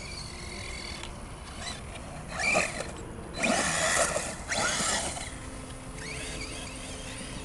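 Arrma Talion 6S RC truck driving through high grass, its electric motor whining up and down with the throttle. Three louder bursts come in the middle, with the grass thrashing under the tyres.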